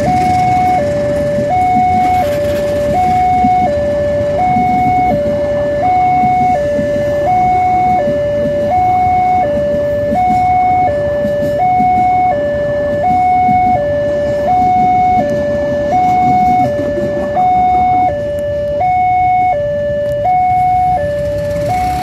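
Railway level-crossing electronic siren sounding a standard two-tone hi-lo alarm, its two notes alternating steadily, each under a second long. The alarm warns that the crossing is closed to a passing train. Under it runs the rumble of the passenger train's carriages going by.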